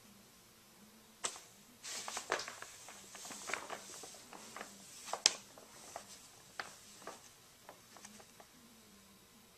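Paper grocery bag rustling and crackling in irregular bursts as a cat scrambles around inside it, with a sharp crackle about five seconds in.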